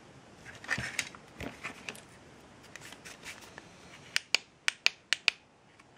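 Rustling, clattering handling noises, then six sharp clicks in quick succession about four seconds in.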